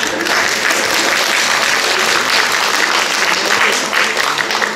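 Audience applauding in a concert hall: dense, steady clapping that greets a singer as he walks on stage, dying away just after the end.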